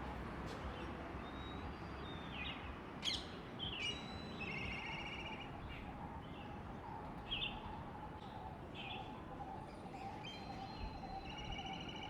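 Black kite (Milvus migrans) calling: short sharp whistled notes and, twice, a high quavering whistled trill.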